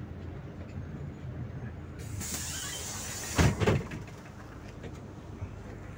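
Inside a 2014 PAZ-4234-05 bus, its diesel engine running steadily. About two seconds in comes a burst of air hiss, then a loud double clunk.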